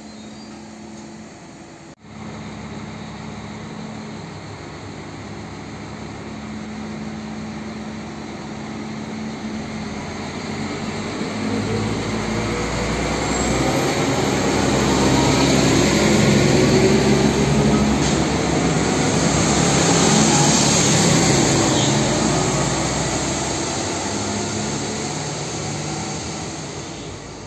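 A two-car PESA SA134 diesel multiple unit pulls out of the station. Its engines run steadily at first, then rev up with a rising pitch as it gathers speed. It grows louder as it passes and fades as it draws away.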